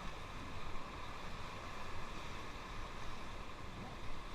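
Steady rush of river water around a moving raft, with wind noise on the microphone.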